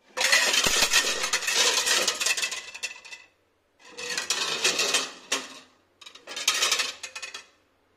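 Small plates clattering and rattling against the steel wires of a plate rack as they are put in, in three bouts; the plates are too small for the rack's slots and slip and lean over.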